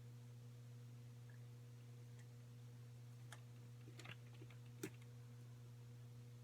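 Near silence: a steady low electrical hum, with a few faint clicks and taps about three to five seconds in, typical of small objects being handled.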